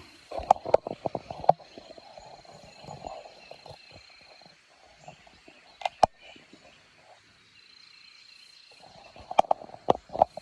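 Handling clicks and knocks close to the microphone as the recording phone is set up: a quick run of clicks in the first couple of seconds, a single sharp click around six seconds in, and another run near the end, over a faint steady high-pitched tone.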